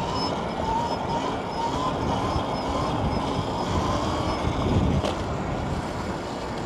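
Wind rushing over the microphone while riding an electric dirt bike, with the motor's thin whine slowly rising in pitch and fading after about four and a half seconds. A brief click comes about five seconds in.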